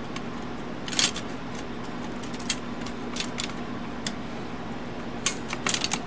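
Metal parts of an Underwood typewriter's typebar mechanism clinking and clicking as a small retaining piece is worked into place by hand. The sharp clinks are scattered, with a cluster near the end, over a steady low hum.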